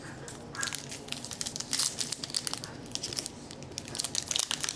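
A trading-card pack wrapper being torn open and crinkled by hand, an irregular crackling that starts about half a second in.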